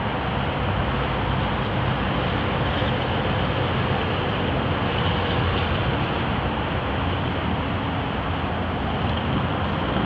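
Steady outdoor background rumble, heaviest in the low range, with a faint steady hum running through it.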